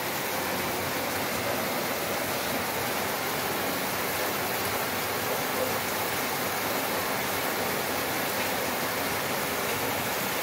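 Rain falling steadily outdoors, a constant even hiss.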